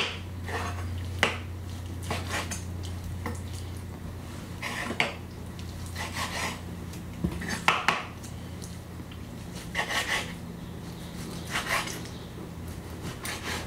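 Chef's knife cutting marinated beef into chunks on a wooden cutting board: irregular knocks of the blade against the board, over a steady low hum.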